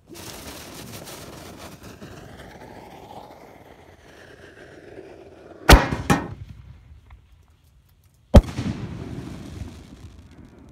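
Fireworks exploding overhead: a steady rushing noise, then two sharp bangs close together about halfway through. After a short hush, a single loud bang comes, followed by noise that fades away.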